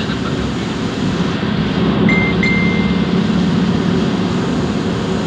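Steady road and engine noise heard from inside a moving vehicle at highway speed. About two seconds in, a short high beep is followed by a longer one.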